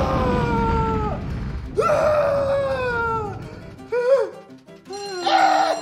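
Cartoon explosion sound effect from a toaster oven blowing up: a sudden boom with a long rumbling tail, a second surge about two seconds in, under falling, wailing tones and music.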